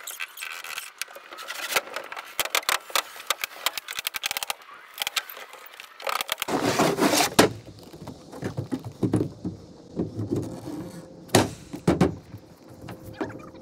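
Irregular knocks, taps and scrapes of work on a wooden roof deck: footsteps and panels being handled on the sheathing. About six seconds in the sound turns fuller and lower, with a few louder knocks.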